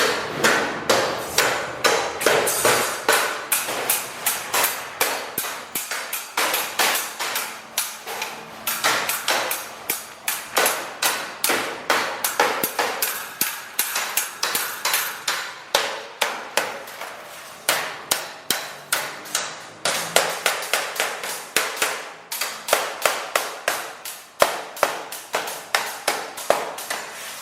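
Hammer blows on metal in quick succession, about three to four strikes a second with a few short breaks, each with a bright ringing edge.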